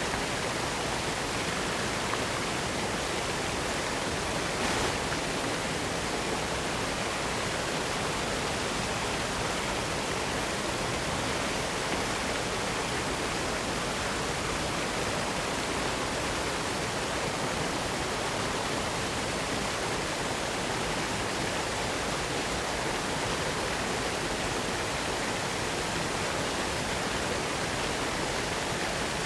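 Spring water pouring down a rock-face waterfall in a steady, unbroken rush.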